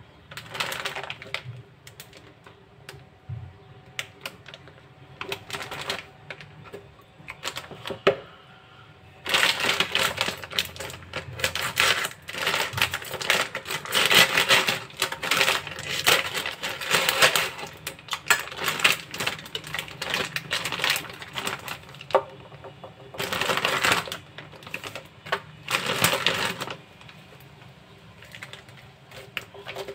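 Plastic packets of a kabsa spice kit crinkling and crackling as they are handled and slit open with a knife. The crackling comes in long dense stretches, loudest through the middle and again near the end, with scattered single clicks between.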